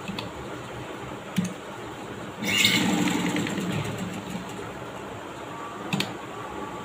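Domestic sewing machine running in one short burst of stitching, starting about two and a half seconds in and fading out over about two seconds. There is a sharp click before it and another after.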